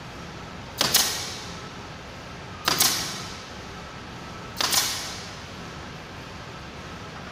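Pneumatic fastening gun firing three times, about two seconds apart, fixing synthetic thatch panels to a roof; each shot is a sharp double snap followed by a short fading hiss.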